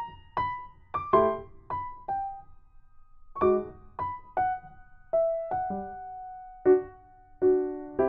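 Background music: a light piano melody of single plucked-sounding notes, pausing briefly about three seconds in.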